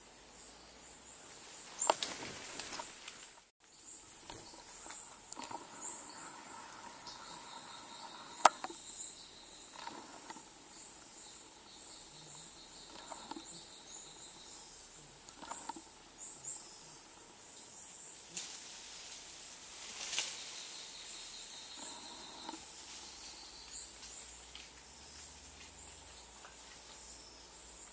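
Quiet rainforest ambience: a steady faint hiss with thin, high insect tones, broken by a few sharp clicks, the loudest about a third of the way through, and a brief dropout near the start.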